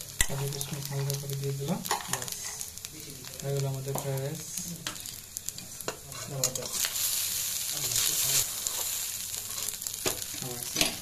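Fried rice sizzling in a wok while a metal spatula scrapes and clinks against the pan as it is tossed. The sizzle swells for a second or two past the middle, and a sharp clink just after the start is the loudest sound.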